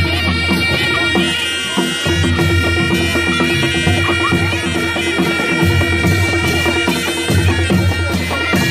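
Nepali panche baja band playing dance music: sahanai shawms carry a loud, nasal, sustained melody over a steady drone, with regular drum beats underneath.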